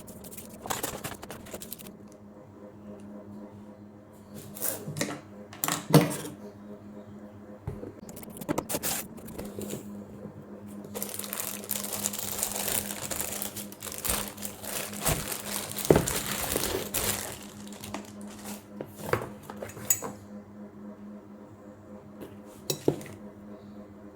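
Unboxing of an angle grinder: hard parts knock and clatter as they are handled. In the middle comes a stretch of several seconds of crinkling and tearing packaging. A faint steady hum sits underneath.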